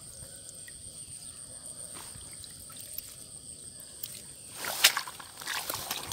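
Shallow water sloshing and dripping as a mesh net frog trap is handled and lifted. It is faint at first and grows louder about four and a half seconds in, with one sharp splash.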